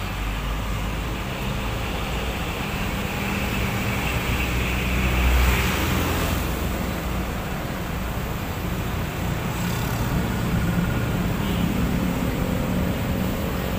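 Car driving along a road: steady engine and tyre noise, swelling briefly about five seconds in.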